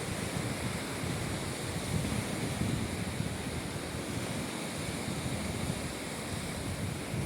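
Baltic Sea surf: waves washing onto the beach in a steady wash of noise, with wind buffeting the microphone in uneven low rumbles.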